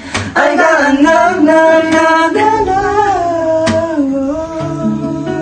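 A singing voice holds a long, wavering wordless note over an acoustic guitar, with a few strums, growing gradually quieter toward the end.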